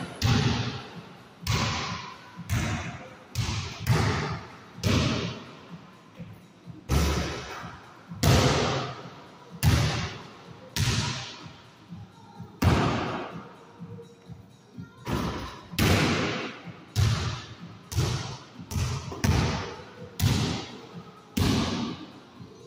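A basketball thudding again and again on the floor, backboards and walls, about once a second at an uneven pace. Each hit rings on with a long echo off the hard walls of a small indoor court.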